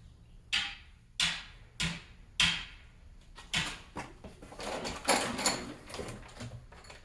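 Engine parts and their packaging being rummaged through: a run of sharp knocks and clatters, then a longer rustle near the end.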